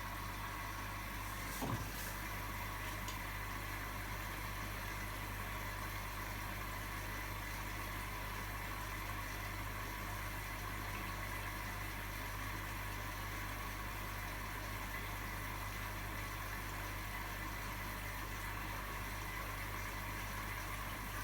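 Indesit MyTime washing machine running quietly early in its cycle while it fills with water: a steady low hum with an even hiss, and one light click about two seconds in.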